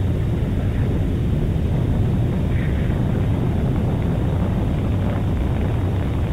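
Recording of a Saturn V rocket liftoff: a steady, loud, deep rumble.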